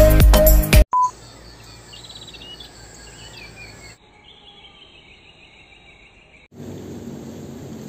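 Music cuts off abruptly in the first second, followed by a short beep. Then quiet morning outdoor ambience with faint bird chirps and a long trilled bird call, and from about six and a half seconds a steady outdoor hiss like wind on the microphone.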